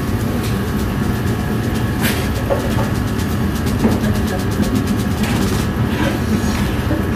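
Steady loud rumble of a commercial kitchen's extraction hood and burners, with a few sharp clanks of metal cookware, the strongest about two seconds in, and a fast run of clicks from about four to five seconds in.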